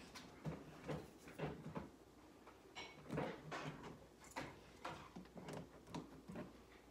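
Soft thumps and knocks, about two a second with a short lull in the middle: footsteps and handling noise from a phone carried in the hand while walking.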